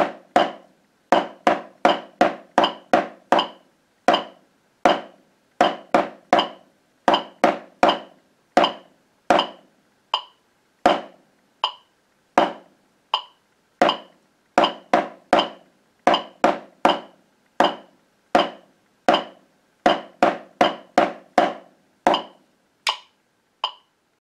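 Wooden drumsticks striking a rubber practice pad in a rhythm of quarter and eighth notes at 80 beats per minute, along with a metronome ticking the beat. The playing stops about 22 seconds in, leaving a couple of lone ticks.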